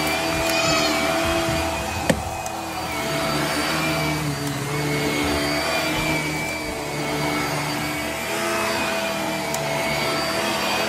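Hart upright vacuum cleaner running on carpet, a steady motor drone whose pitch shifts a little as it is pushed back and forth. A single sharp click about two seconds in.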